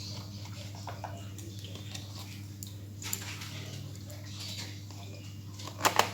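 Faint ticking and clicking of screws being driven into a laptop's plastic bottom cover, over a steady low hum. Near the end there are two sharp clicks in quick succession.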